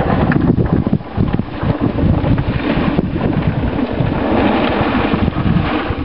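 Wind buffeting the microphone, with the rustle and patter of freshly picked wild blueberries and leaves being poured from a wooden box into a plastic crate.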